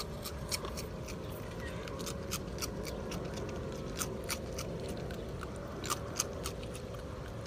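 A raccoon crunching colourful ring cereal: many sharp, irregular crunchy clicks, several a second, over a steady low background rumble.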